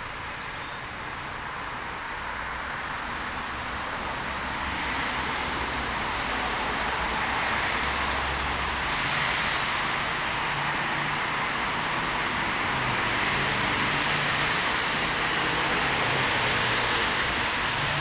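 Steady rushing hiss of running water in a small brook, growing louder over the first several seconds and then holding.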